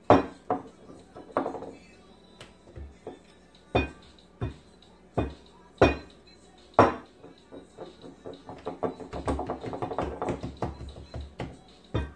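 Glass Corona beer bottle used as a rolling pin, knocking and rolling on a granite countertop as flour-tortilla dough is rolled out. There is a string of sharp knocks about a second apart, then a rapid rattling run for a few seconds near the end.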